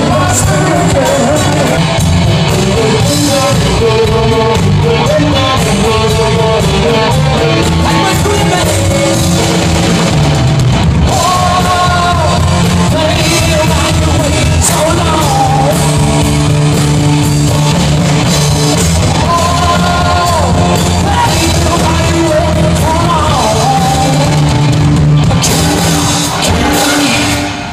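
Live rock band playing loud with a lead singer: electric guitars, bass and a drum kit under the sung melody. The song ends just before the end.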